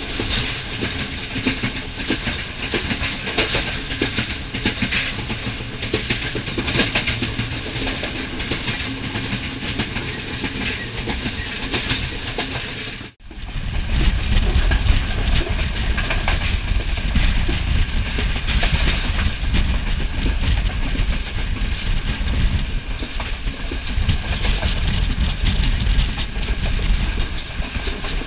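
Sri Lanka Railways intercity train running, its wheels clattering over the rails, heard through an open carriage door. About thirteen seconds in, the sound cuts out briefly and comes back with a heavier low rumble.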